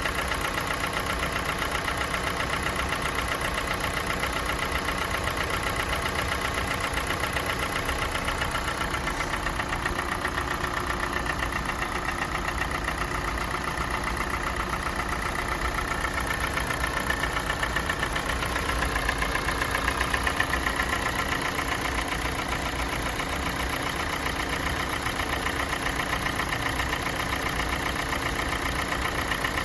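Kia Sportage G4NA 2.0-litre four-cylinder petrol engine, at 265,500 km, idling as it warms up from a cold start. Extra knocks that were not there at start-up are coming through, a knock that grows as the engine warms. Its loudness swells slightly about two-thirds of the way through.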